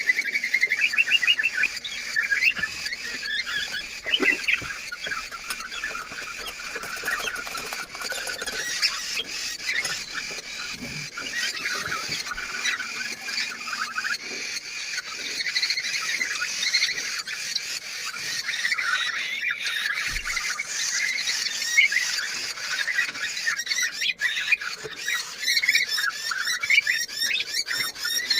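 Young parrot chicks calling continuously in a dense chorus of high chirps and raspy squeals, the begging of chicks waiting to be fed.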